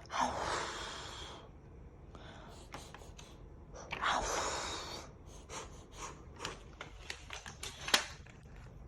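Two long, hard puffs of breath blown out at a toy pinwheel, a few seconds apart, followed by a scatter of light clicks and taps.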